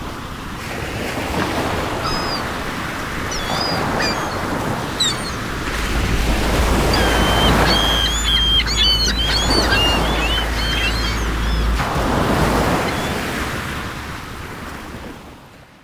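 Wind and water on open estuary, with gulls calling over and over, most thickly in the middle; a low rumble comes in for several seconds midway, and the sound fades out at the end.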